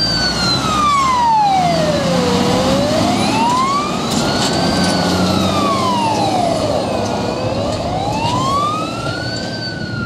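Forestry fire truck's wailing siren, rising and falling slowly, about one full sweep every five seconds, over the truck's engine running as it drives off.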